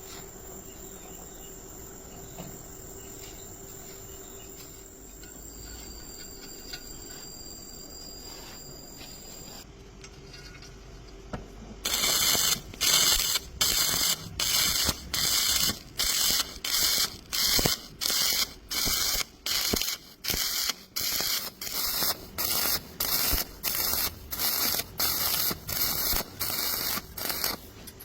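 A faint steady hum for about the first twelve seconds. Then a welding arc is struck in rapid short bursts, a loud crackling hiss switching on and off about one and a half times a second, as in stitch welding.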